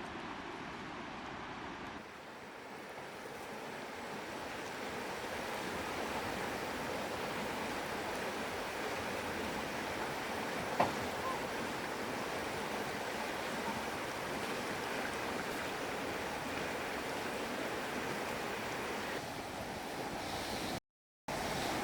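Steady rush of flowing water, with one sharp click about halfway through; the sound cuts out for a moment near the end.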